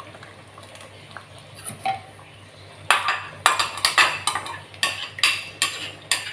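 Ground coconut milk poured quietly into a clay pot of fish curry, then a spoon scraping out a plastic container over the pot: a quick run of about nine sharp knocks in the second half.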